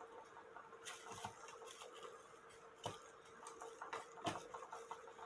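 Irregular light clicks and taps of the cuckoo clock's movement and test stand being handled, a few sharp knocks scattered among softer ones, over a faint steady hum.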